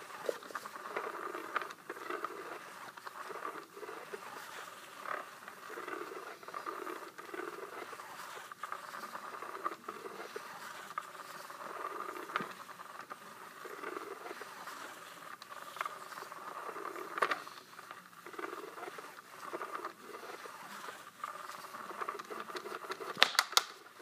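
Battery-powered Cat's Meow cat toy running, its small motor whirring steadily as the wand moves under the fabric cover, with irregular scratching and rustling against the fabric. A few sharp clicks come near the end.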